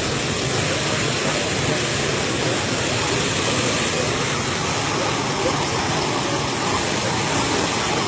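A tall jet of water spouting up from the ground and falling back onto bare earth, making a steady, unbroken rush of splashing water.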